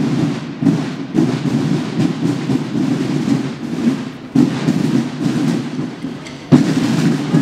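Massed buekorps marching drums beating as the corps parade past: a dense, rumbling drumming with sharp louder strokes standing out now and then, the loudest about six and a half seconds in.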